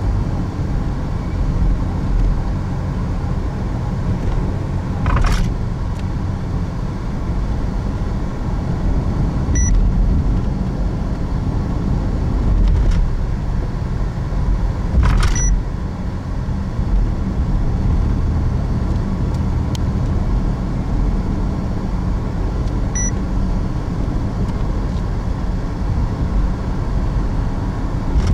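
Steady road and engine rumble inside a moving car's cabin. Two short sharp knocks come about five and fifteen seconds in, and a brief electronic beep sounds twice, about ten seconds in and near the end.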